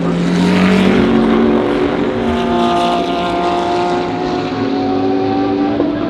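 GT3 race car engine under load, its pitch climbing gradually as it accelerates.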